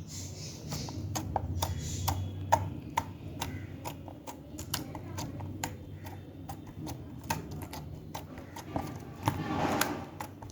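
Slime being squeezed and poked by hand, giving irregular sticky clicks and pops, a few a second, with a longer wet squish near the end.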